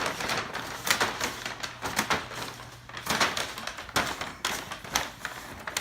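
A paper bag crinkling and crackling as a toddler grabs and shakes it, in a dense, irregular run of crackles.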